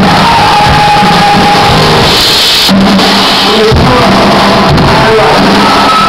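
Rock band playing live with a singer; loud throughout.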